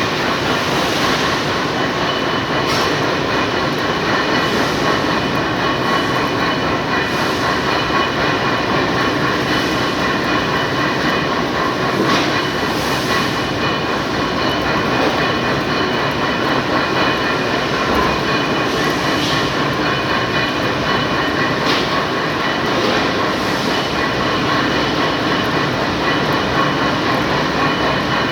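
Small lathe running steadily: a constant mechanical rattle with a steady whine, and a brief hiss now and then.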